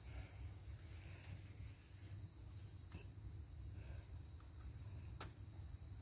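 Faint handling of the plastic parts of a small solar fountain kit as its legs are pulled out, with one sharp plastic click about five seconds in. A steady high-pitched whine and a low hum run underneath.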